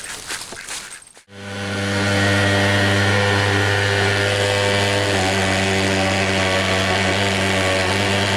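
Ducks quacking for about a second, then an abrupt switch to a small engine running at a steady speed with a deep hum.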